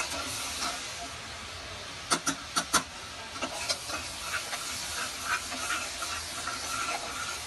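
Spice masala sizzling in hot oil in a pressure cooker as a metal slotted spatula stirs it, with a few sharp clacks of the spatula against the pot about two seconds in. The masala is nearly fully fried, cooked to the point where the oil separates.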